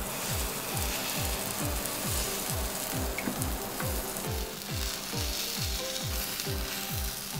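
Takoyaki sizzling in the wells of a hot electric takoyaki plate, a steady hiss, under background music with a low beat about three times a second.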